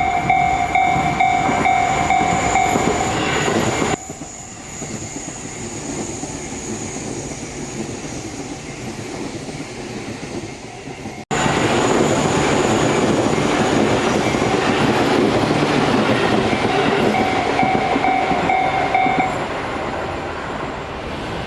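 Japanese level-crossing bell ringing its repeated kan-kan warning while a Tobu Urban Park Line train runs past with a loud rumble and wheel clatter. The sound cuts off abruptly about four seconds in to a quieter rumble, then cuts back to a loud close pass, and the bell rings again until shortly before the end.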